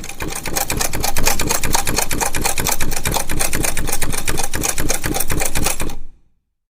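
Antique sewing machine stitching at a steady speed, a fast even clatter of the needle mechanism at roughly ten strokes a second, which stops abruptly about six seconds in.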